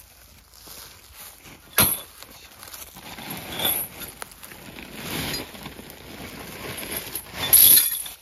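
Heavy steel chain clinking and rattling in several short bursts, with a sharp clink about two seconds in and the loudest rattle near the end, mixed with footsteps on dry leaves.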